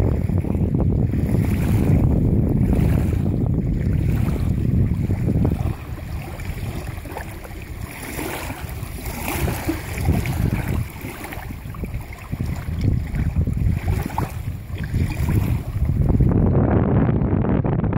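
Wind buffeting the microphone, with small waves lapping. The gusts ease off around the middle and pick up again near the end.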